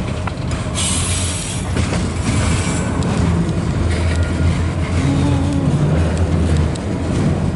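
A long freight train of loaded autorack cars rolling past, with a steady rumble of wheels on the rails and hissing wheel and rail noise that swells about a second in and again a couple of seconds later.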